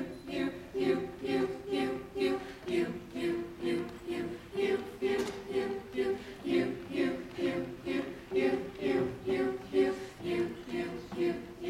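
A mixed-voice a cappella group sings a chordal backing pattern without instruments, the voices pulsing in a steady rhythm about twice a second.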